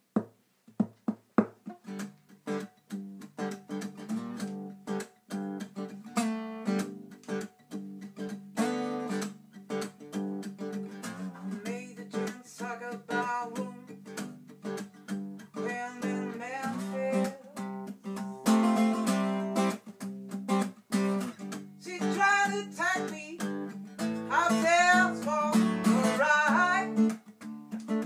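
Acoustic guitar strummed in a rhythmic improvised tune, starting after a few sharp taps about two seconds in. Near the end a voice joins with wavering, sliding vocal sounds over the chords.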